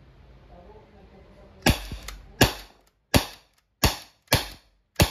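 Umarex T4E TR50 .50-caliber CO2 revolver firing six sharp shots in quick succession, the first about a second and a half in and then roughly one every 0.7 s. This is the fourth cylinder load fired on a single pierced CO2 cartridge that is still at strong pressure.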